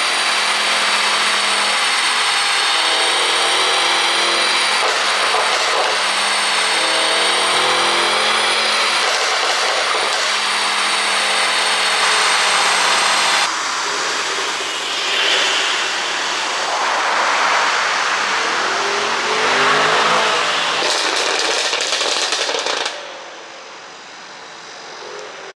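Tuned Mercedes-AMG GT 63 S twin-turbo V8 exhaust, the engine note rising and falling as it is revved and driven, with a change in sound about halfway through. Near the end come clusters of sharp crackles and pops from the tune's overrun exhaust pops, before the sound drops away.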